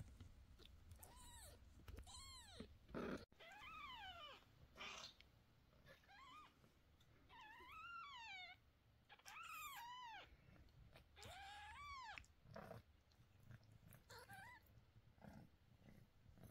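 Newborn kittens mewing: about eight high, thin cries spread through the stretch, each under a second long and rising then falling in pitch.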